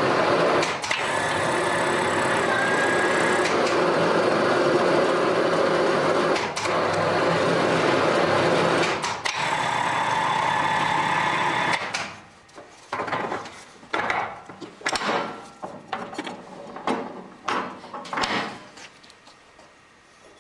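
Wrought iron twisting machine running steadily as it twists a bundle of square iron bars into a basket shape. It stops about twelve seconds in, leaving irregular short knocks.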